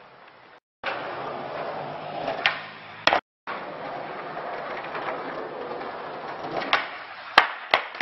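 Skateboard rolling on asphalt, with sharp clacks of the board popping and slapping down on the ground, the loudest cluster near the end. Two brief dropouts break the sound.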